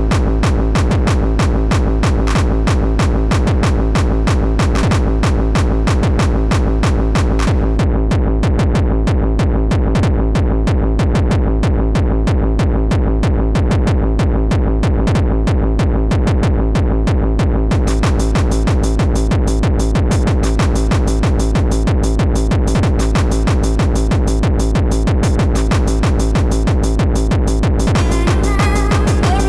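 Amiga demo soundtrack: electronic techno music with a steady drum-machine beat. About eight seconds in the high end drops out, leaving only the bass and drums, and it comes back about ten seconds later. A brighter melodic part begins near the end.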